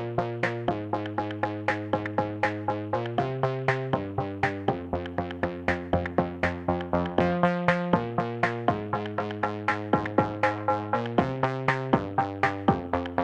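Electronic background music: synthesizer chords changing every second or so over a steady, quick beat.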